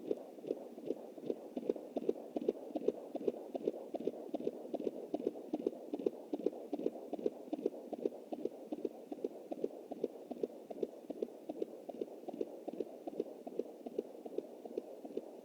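Fetal heartbeat picked up by a Jumper handheld Doppler at about 20 weeks of pregnancy. It comes through the device's speaker as a fast, even run of quick pulsing thumps over a steady hiss.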